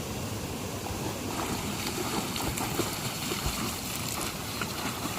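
River water flowing: a steady rush with small splashes and trickles.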